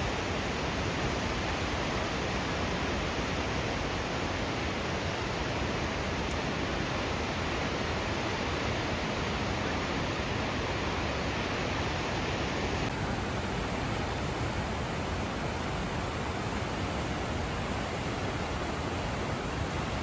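Steady rush of water falling at the Marmore Falls, a dense even noise with no breaks; its higher hiss softens slightly about two-thirds of the way through.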